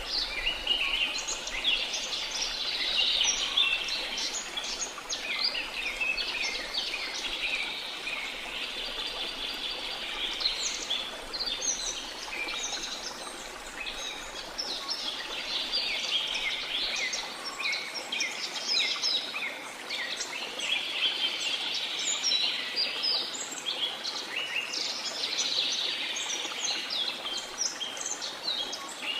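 Dense chorus of rainforest birds: many short, overlapping chirps and calls that never stop, over a steady background hiss.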